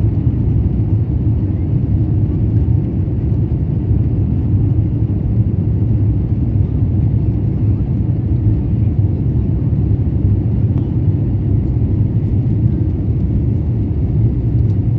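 Steady low rumble of a jet airliner's cabin during the climb after takeoff, heard inside the cabin at a window seat.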